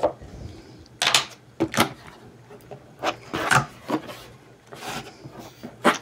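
A cardboard shipping box being opened by hand: the packing tape is cut and the flaps are pulled back. It comes as several short scrapes and rips, with quieter rustling of cardboard in between.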